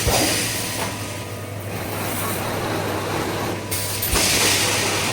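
Pneumatic wire mesh welding machine running: a steady low hum under mechanical clatter. A knock comes about four seconds in, with a loud hiss of air starting just before it.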